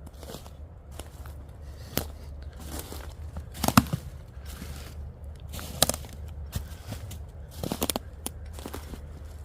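Footsteps crunching through dry leaves and twigs in woodland, with irregular crackles and sharper snaps, the loudest about four and six seconds in.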